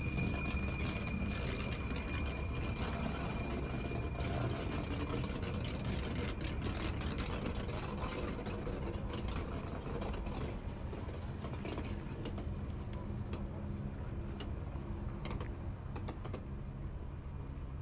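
Rhaetian Railway electric multiple-unit train rolling slowly past, giving a steady whir and hum. A thin high tone fades out about four seconds in, and a scatter of light clicks comes over the last several seconds.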